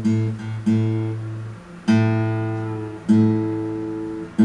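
Acoustic guitar's open fifth (A) string plucked four times, about every second and a quarter, each note left to ring and fade while it is tuned to A. The note stays at one steady pitch, sitting close to A.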